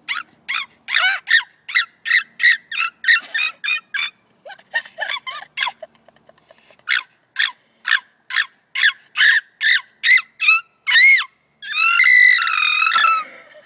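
A girl making a string of short, high-pitched silly vocal noises, about three a second, with a brief lull in the middle, then one long shrill squeal near the end.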